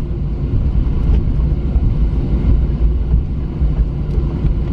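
Cabin noise of a Boeing 737-900 taxiing: a steady low rumble from its CFM56-7B engines at taxi power and the wheels rolling on the taxiway, heard from inside the cabin.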